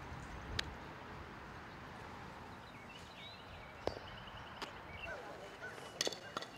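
Softball smacking into a leather fielding glove about half a second in, followed by a few more sharp knocks of ball on glove and bat near the middle and a quick cluster near the end, over a steady outdoor hiss with small birds chirping.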